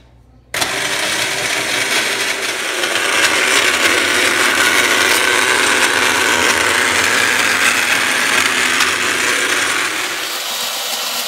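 Proctor Silex countertop blender switched on about half a second in, running steadily as it blends ice, milk and frappe powder; it gets a little softer near the end.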